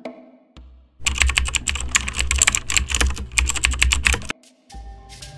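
Typing sound effect: a fast run of keystroke clicks for about three seconds, starting about a second in, then after a short pause a few slower, separate keystrokes near the end.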